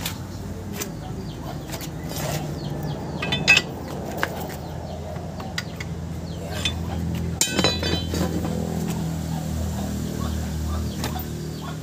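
Scattered metal clinks and taps from a Suzuki Multicab's CV joint axle being worked into place by hand. The loudest clinks come about three and a half and seven and a half seconds in, over a steady low hum.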